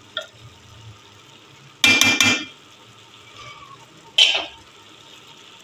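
Metal spoon clanking against an aluminium cooking pot. About two seconds in there are three quick clanks with a thin metallic ring, and just after four seconds a single sharp clink that fades out.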